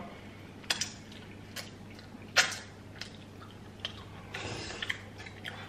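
Close-miked eating of seafood in butter sauce: soft wet chewing and mouth smacks, with a handful of short sharp clicks scattered through.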